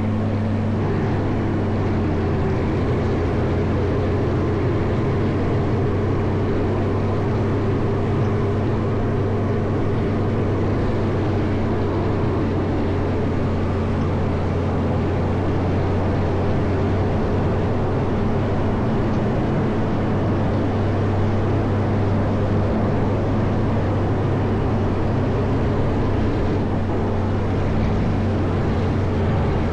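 Caterpillar 140M motor grader's diesel engine running at a steady, unchanging pitch while the grader works clearing snow.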